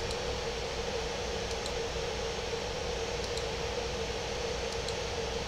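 Steady hiss of room noise with a steady mid-pitched hum, and faint double clicks of a computer mouse about every second and a half.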